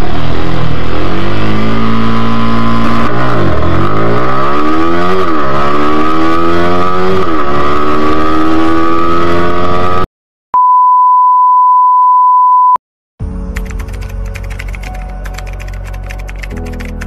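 Yamaha R15 V3's single-cylinder engine with stock exhaust accelerating hard, its revs climbing and dropping at three gear shifts. It cuts off suddenly, followed by a steady high beep for about two seconds and then background music.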